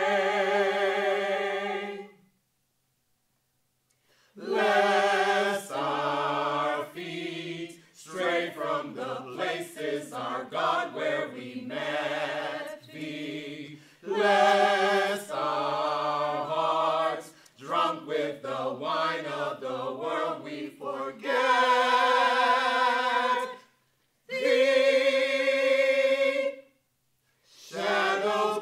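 Mixed choir of men's and women's voices singing a cappella in sustained chords, phrase after phrase. The singing stops for about two seconds a couple of seconds in, and breaks briefly twice near the end.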